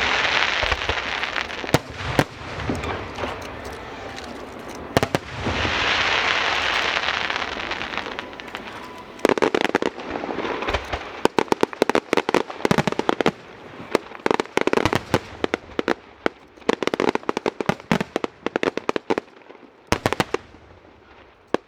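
Aerial fireworks going off: two long hissing, crackling bursts in the first eight seconds, then from about nine seconds in a dense run of sharp crackling pops.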